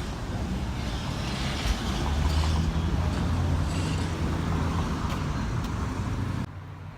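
A motor vehicle passing close by: a low engine rumble that swells through the middle and cuts off abruptly near the end.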